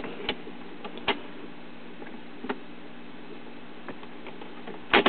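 BSR UA25 record changer cycling at the end of a 45 RPM record: scattered light ticks and clicks from the mechanism over a steady hum as the tone arm returns to its rest. Near the end comes a sharper double click as the changer shuts itself off.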